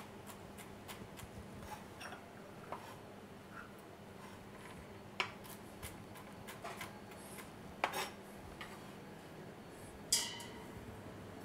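Chef's knife chopping walnuts on a plastic cutting board: a run of light, irregular knife taps with a few sharper knocks. A louder, briefly ringing clank about ten seconds in.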